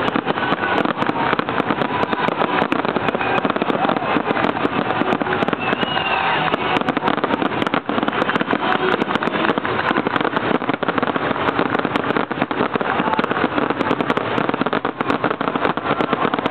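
Fireworks display: steady dense crackling with many sharp pops and bangs, with people's voices mixed in.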